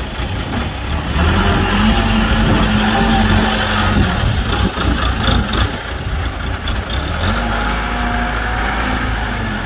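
Diesel engine of a small HJ18B wheel loader revving up as its bucket is pushed into a sand pile, easing off a little past the middle, then revving up again.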